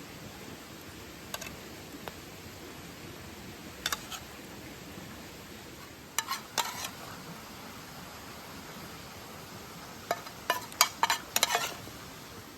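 Cooking utensils and dishes clinking and tapping in short, sharp knocks: a few single ones, a quick run about six seconds in and a busier run near the end. Underneath is a steady hiss.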